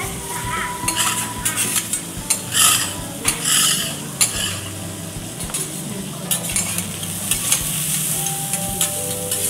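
Teppanyaki chef's metal spatulas scraping and tapping on a steel griddle while food sizzles on it. A run of sharp metal clacks comes in the first few seconds, loudest about two and a half and three and a half seconds in.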